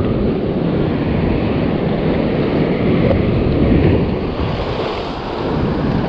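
Ocean swell surging and washing over the rocks, building a little past the middle and then easing, with wind buffeting the microphone.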